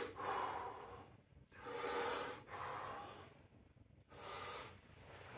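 A man taking a series of deep, forceful breaths in and out, about one a second with short pauses, readying himself to lift a pair of 100-pound dumbbells.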